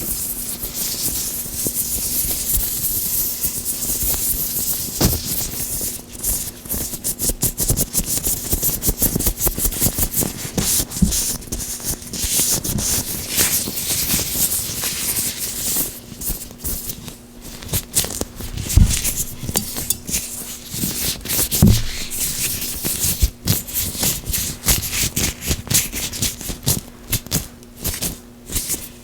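Oiled gloved hands rubbing and squeezing close to the microphone, with irregular strokes and frequent sharp crackles and snaps of the glove material.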